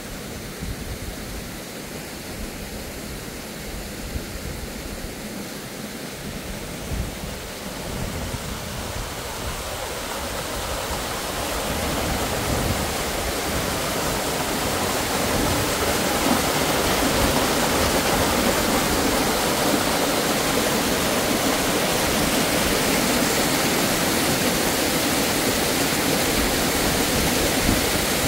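Waterfall rushing steadily, a continuous roar of water that grows louder over the first half and then holds level.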